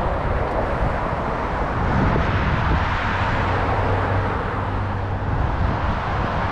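Steady road traffic noise: cars passing on a road, a continuous hum of engines and tyres.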